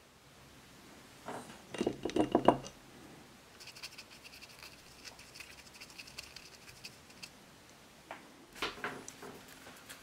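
A paintbrush working a watercolour paint box: a brief cluster of small hard clinks and taps about two seconds in, then a light, rapid scratching as the brush scrubs wet paint in a pan, and a few more clinks near the end.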